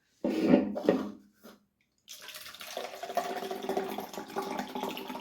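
A short loud noise about a quarter second in. From about two seconds in, liquid is poured steadily into a cup.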